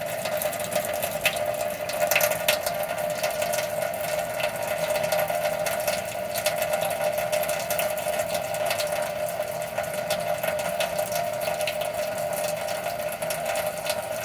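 Kitchen sink tap running hot water in a steady stream, splashing into the sink, with a steady hum running underneath.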